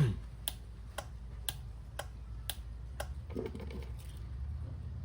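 Steady clicking from the car alarm unit, about two clicks a second, stopping about three seconds in, followed by a brief faint rustle.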